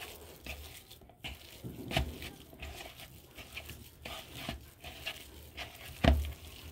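A bare hand mixing and squeezing mashed boiled potato with spices and chopped herbs in a bowl: soft, irregular squishing and rustling, with a few light knocks against the bowl. The loudest knock comes about six seconds in.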